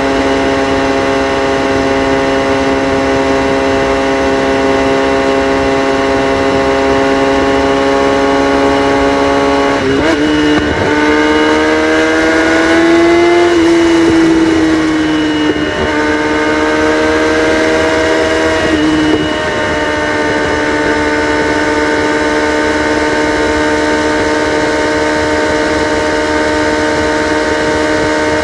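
Kawasaki ZX-6R inline-four running with its catalytic converters removed, the exhaust loud and unmuffled. It holds a steady engine speed, the revs rise and waver about a third of the way in, then drop in two steps to another steady note.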